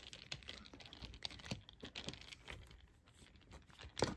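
A Phillips screwdriver backing a screw out of a plastic chair armrest: faint, irregular small clicks and scrapes of the bit turning in the screw head, with a sharper click near the end.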